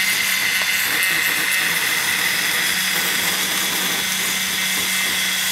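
Small desktop 3D printer running mid-print: a steady machine whine, with one low tone and a higher tone held throughout.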